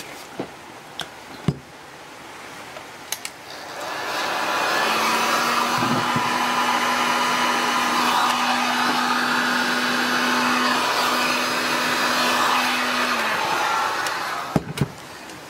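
Electric heat gun switched on about three and a half seconds in, its fan blowing with a steady hum for about ten seconds, then switched off shortly before the end. A few sharp knocks come before it starts.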